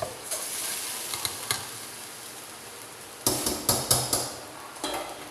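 Kitchen clatter of cooking utensils and cookware: a short hiss with a few light clicks, then a quick run of about five sharp knocks in a second, and another couple near the end.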